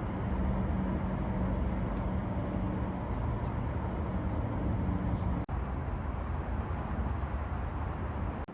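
Steady low vehicle rumble of engine and road noise, broken by an abrupt dropout for an instant about five and a half seconds in.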